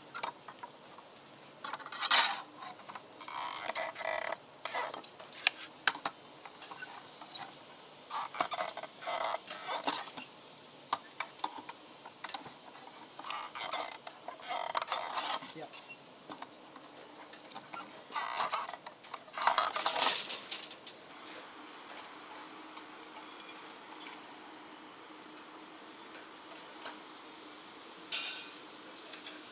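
Hand work with metal construction tools: repeated bouts of scraping with metallic clinks, stopping about two thirds of the way through, then one more sharp scrape near the end.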